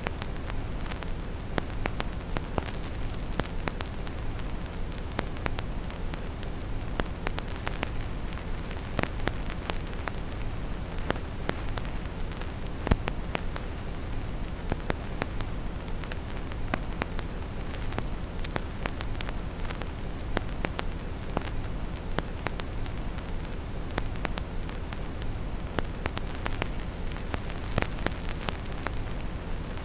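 Vinyl record surface noise: irregular crackles and pops from a stylus in the groove over steady brown noise, a rumble-heavy hiss. One pop about halfway through stands out louder than the rest.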